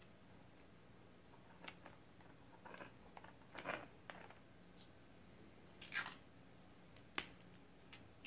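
Faint, scattered crinkling and rustling of the thin black plastic trash-bag sail of a homemade kite as it is handled, with a few sharp ticks; the loudest rustles come about three and a half and six seconds in.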